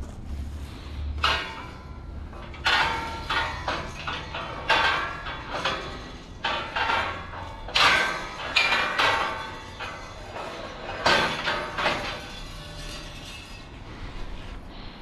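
A series of irregular sharp metallic clanks and knocks, each ringing briefly, which thin out near the end.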